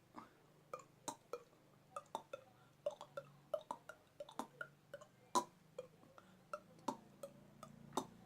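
A beatboxer's mouth clicks: the triple clop, tongue clops made in quick groups and repeated over and over. Each clop is a sharp, hollow click like a wood block.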